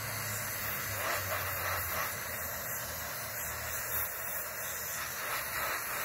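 Aerosol carburettor cleaner hissing in a steady continuous spray onto an electronic throttle body.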